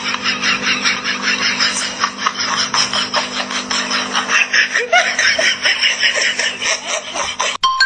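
Laughter in rapid, even, breathy bursts, about five a second, over a faint steady hum; it cuts off abruptly near the end.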